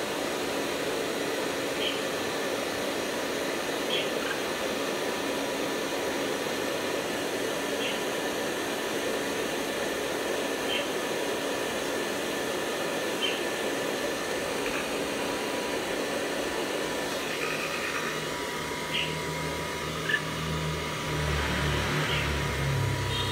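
A steady mechanical whir with a thin whine runs throughout. Short high bird chirps come every two seconds or so over it, and a low rumble joins near the end.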